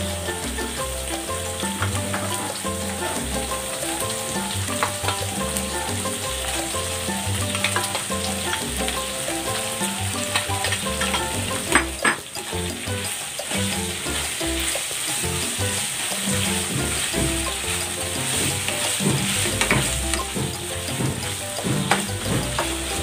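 Chicken strips with onion and red and green bell pepper sizzling as they stir-fry in a non-stick pan, with a spatula scraping and clicking against the pan and one louder knock about halfway through.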